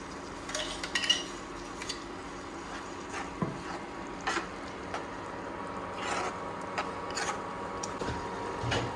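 A metal spoon clinking and scraping against a steel pan in irregular strokes, stirring ground masala paste into the curry.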